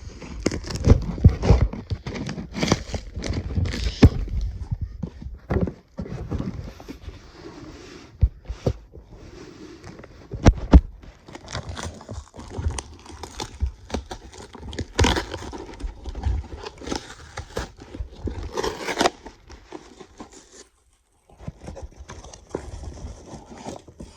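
Shipping package being opened by hand: tape and cardboard tearing and packaging crinkling, with scattered sharp knocks and clicks from handling.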